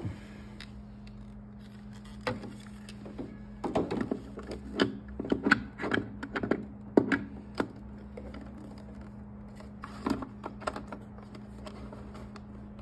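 Plastic clicks and knocks of a diode laser hair-removal handpiece being handled and fitted into its holder on the machine's front panel, with a dense run of knocks in the middle and a few more a couple of seconds later, over a steady low hum.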